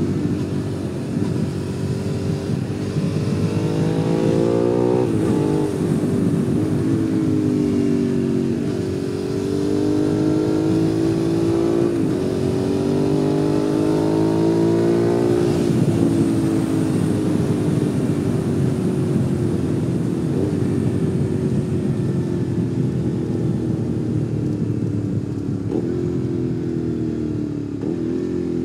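Suzuki SV650's 645 cc V-twin engine heard on board under way: it revs up through the gears, with sudden drops in pitch at the upshifts, then the revs fall slowly as it rolls off the throttle. Wind noise runs under it.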